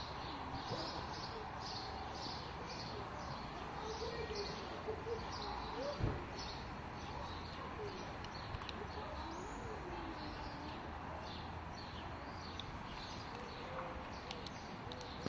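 Small birds chirping over and over, two or three short high chirps a second, with a few low cooing calls now and then. A single soft thump about six seconds in.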